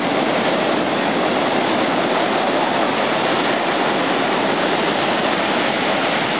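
Heavy ocean surf breaking and washing up the beach: a loud, steady rush of waves.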